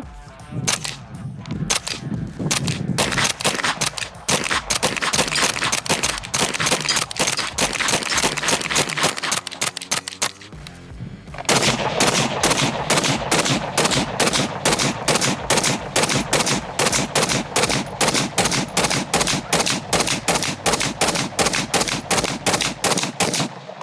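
Gunfire in rapid strings of shots from range firearms, with a short break a little under halfway through, over background music.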